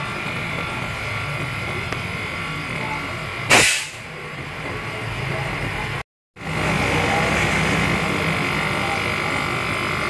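Steady rushing hiss of a cleaning hose jet played over a refrigerator's back panel, with a low machine hum underneath. There is a sharp loud burst about three and a half seconds in. The sound cuts out for a moment at about six seconds, then resumes a little louder.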